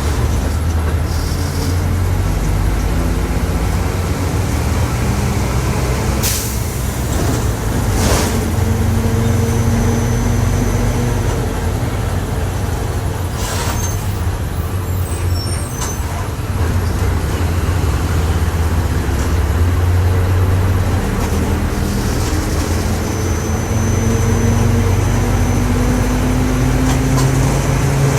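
Volkswagen 17.230 OD bus running under way, its diesel engine steady and low, with a loud droning whine from the differential that slowly rises and falls in pitch with road speed. A few short sharp noises cut in about six, eight and thirteen seconds in.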